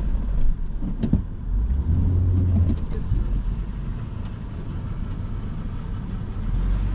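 Cabin noise of a lifted Honda SUV crawling slowly over a rocky dirt trail: a steady low rumble, with a few sharp knocks in the first second or so.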